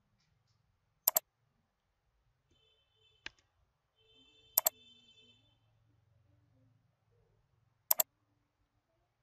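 Computer mouse button clicks, each a quick press-and-release pair: three loud double clicks about a second, four and a half and eight seconds in, with a fainter single click between the first two.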